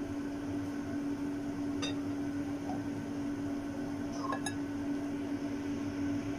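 A steady electric hum, with two light clicks of a wooden spatula against a plate as food is served, one about two seconds in and one past four seconds.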